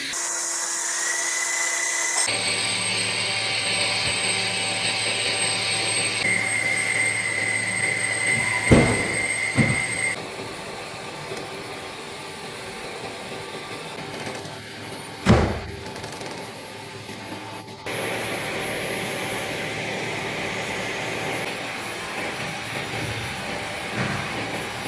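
Automatic pipe-welding machine at work: a steady hiss with a high whine and a low hum. The sound changes abruptly several times, and a few sharp clicks come at about 9, 10 and 15 seconds.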